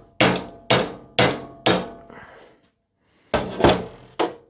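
Ball-peen hammer blows on a 3D-printed plastic mould clamped in a bench vice, trying to knock a cured polyurethane bush out of it: four sharp knocks about two a second, a pause, then three more knocks near the end.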